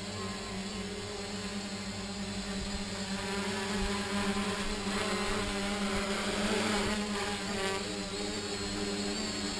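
Quadcopter's electric motors and propellers humming steadily in flight, a little louder for a few seconds midway.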